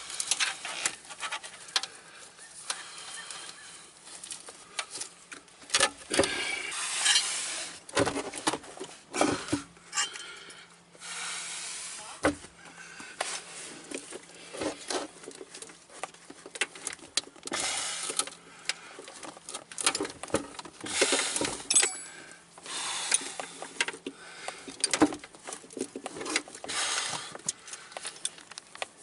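Knocking, clicking and scraping as a car battery is worked and pried loose from its tight compartment under a Smart car's floor: irregular knocks, with several rasping scrapes of the battery case rubbing against the plastic surround.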